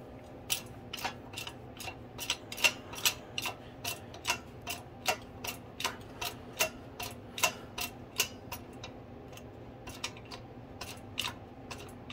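Hydraulic shop press being pumped, with sharp mechanical clicks coming about two to three times a second, some louder than others, as the press is brought down until it pressurizes.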